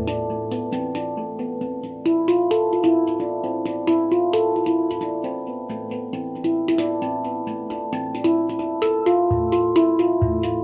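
Baopan handpan with a low A2 ding, played with the fingertips: quick tapped notes ringing into one another. The deep ding rings out at the start and is struck twice more near the end.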